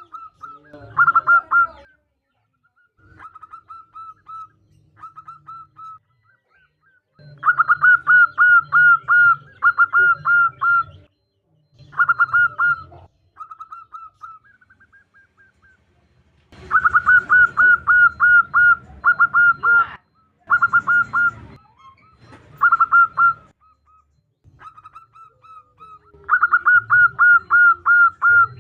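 Female zebra dove (perkutut) calling to draw a male: bursts of rapid, evenly spaced short cooing notes, several bursts separated by pauses, with softer single notes in between.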